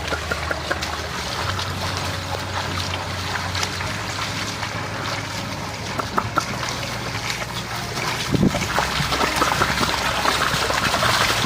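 Water trickling and splashing, with many small clicks over a steady low hum, and a couple of low thumps about eight seconds in.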